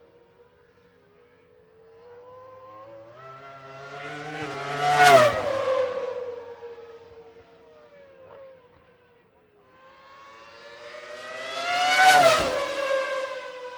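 Two racing cars pass by at high speed, one about five seconds in and one about twelve seconds in. Each engine note rises as the car approaches and then drops sharply in pitch as it goes by.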